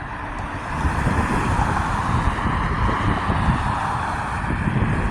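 Outdoor traffic noise: a vehicle going by on a nearby road, swelling about a second in and holding steady, with wind rumbling on the microphone.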